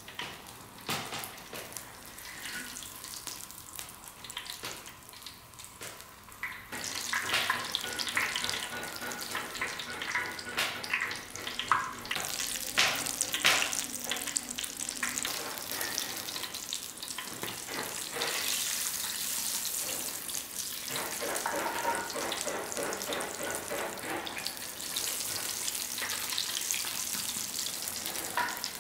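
Sweet potato and bean cakes deep-frying in hot oil in an iron wok, a steady sizzling and bubbling with scattered sharp clicks and clinks. The sizzle grows louder and denser about seven seconds in.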